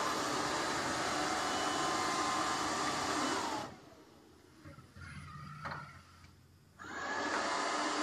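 Robot vacuum cleaner (Haier SWR Pathfinder) running its suction motor and brushes on a tile floor with a steady whirring hum. A bit past halfway the noise cuts out suddenly, and about three seconds later it comes back, rising in pitch as the motor spins up.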